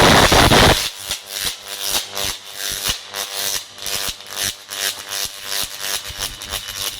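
A 400 kV line isolator chattering as it is operated: the crackle of electrical arcing at the switch contacts. A loud continuous crackling buzz breaks off about a second in into irregular sharp snaps, roughly three a second, over a faint hum.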